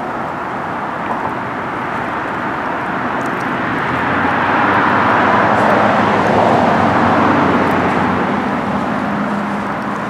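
A road vehicle driving past: a steady rushing noise that swells to a peak about five to seven seconds in and then fades away.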